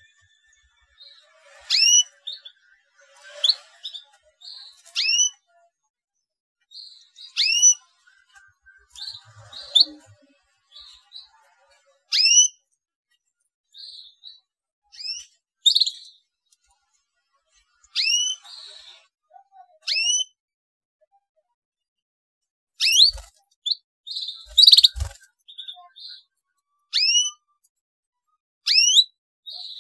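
Young canary giving short, sharp rising 'cuit' chirps, one every one to three seconds, with softer twitters between. A light thump comes about three-quarters through.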